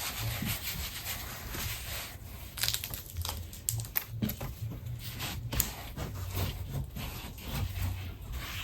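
Slime being mixed and kneaded by hand: irregular soft sticky clicks and crackles.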